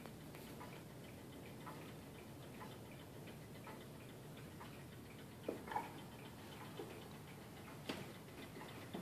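Antique French Vincenti 8-day cartel wall clock ticking faintly and steadily, with a few louder knocks about halfway through and near the end.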